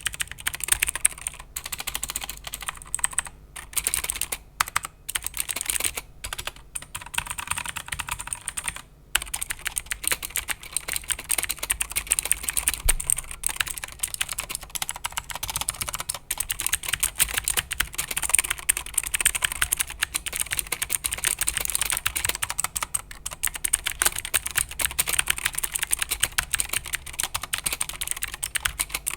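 Continuous fast typing on a Rapoo V500 Alloy budget keyboard: a dense stream of key clicks, broken by a few short pauses in the first ten seconds.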